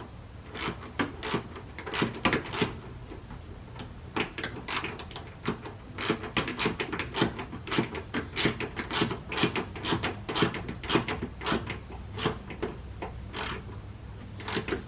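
Hand ratchet clicking in quick, irregular runs of clicks, tightening the nut on a bumper quick-release fastener bolt.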